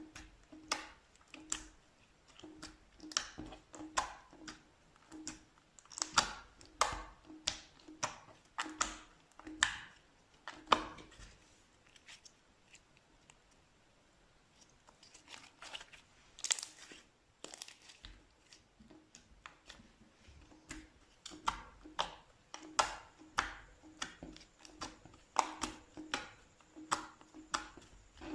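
Slime being pressed and squeezed by hand, giving sharp sticky pops and crackles about twice a second, with a quieter stretch in the middle.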